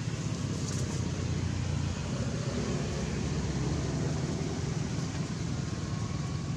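Steady low engine-like rumble with a faint hiss above it, unbroken throughout.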